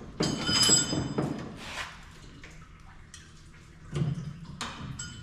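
Metal hand tools clanking together, with a bright ringing rattle in the first second and a couple of sharp knocks near the end.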